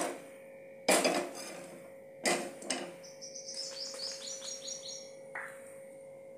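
An aluminium frying pan is set down on a gas stove's metal burner grate, clanking twice, about one and two seconds in. Then a bird chirps a run of quick, high, falling notes for about two seconds.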